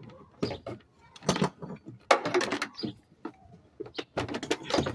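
Irregular clicks, knocks and rattles of hard plastic parts as the air filter housing and intake of a 2000 Kia Sportage are handled and unclipped, with a busier stretch of handling noise a little after two seconds.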